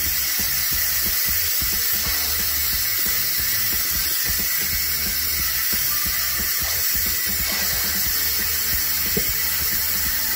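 Instant Pot pressure cooker venting steam through its pressure-release valve during a quick release at the end of cooking: a steady, loud hiss.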